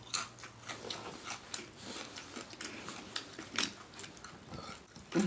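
Close-miked chewing and lip-smacking while eating shrimp salad: a run of irregular wet smacks and clicks from the mouth, with a stronger smack near the end.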